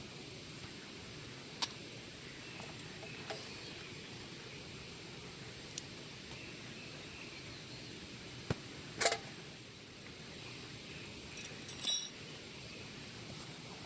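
Camp gear being handled: a few scattered sharp clicks and knocks, then a short burst of jangling metal clinks about twelve seconds in, the loudest sound, over a steady faint outdoor hiss.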